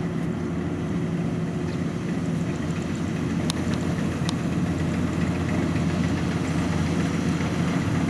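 Kubota DC93 combine harvester's diesel engine running steadily under work.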